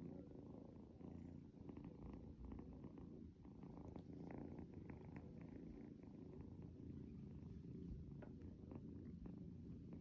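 Kitten purring faintly in a steady low rumble, with a few soft light clicks scattered through it.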